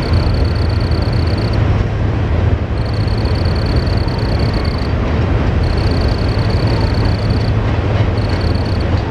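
A long freight train rumbling steadily as it crosses a steel truss bridge, with a cricket trilling over it in high-pitched runs of about two seconds broken by short pauses.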